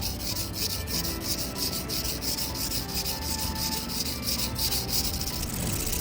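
Stainless-steel GLOBAL petty knife blade stroked back and forth across a whetstone: a rhythmic scraping at about three strokes a second that stops near the end. Faint background music underneath.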